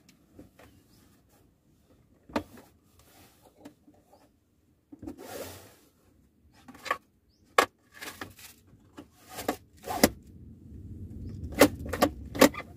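Hard plastic armrest console box being handled and seated between the car seats: a series of sharp clicks and knocks as the box is pressed into place and its hinged lid is opened and shut, with a short rustling slide about five seconds in and a quick run of three clacks near the end.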